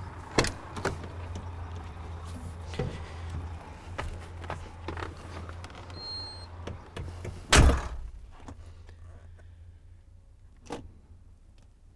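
Cab door of a MAN truck slammed shut about seven and a half seconds in, one heavy thump that is the loudest sound, after scattered knocks and clicks as someone climbs into the cab. A low steady hum runs underneath, and a short high beep sounds about six seconds in.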